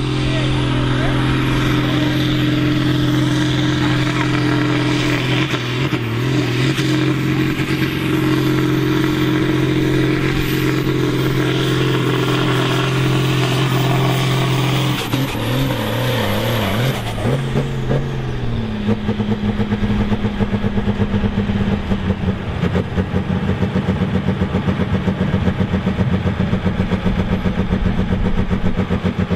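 Deutz D9006 tractor's air-cooled six-cylinder diesel running flat out under full load while pulling the sled, holding steady revs for about fifteen seconds. The revs then fall away over a couple of seconds as the pull ends, and the engine settles into a lower, lumpy, pulsing run.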